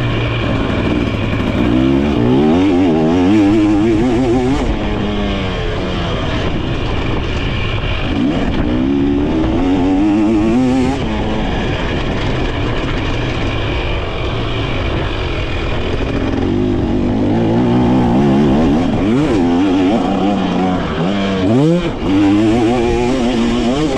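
2023 KTM 300 SX two-stroke motocross bike being ridden hard, its engine repeatedly revving up and falling back as the throttle is opened and closed. Near the end there is a quick sharp rev and a brief drop before it pulls again.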